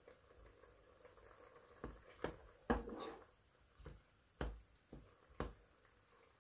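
Wooden spoon stirring ground meat in coconut milk in a metal pot, knocking against the pot about half a dozen times at irregular intervals, with a soft wet squish of the stirred liquid.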